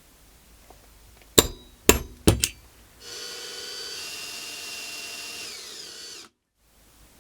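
Three sharp knocks on the workpiece, then a small power tool such as a drill runs steadily for about three seconds, its pitch sagging a little before it cuts off suddenly.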